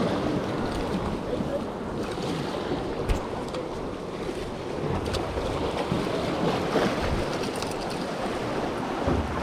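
Ocean waves washing in, with wind buffeting the microphone and a few faint clicks.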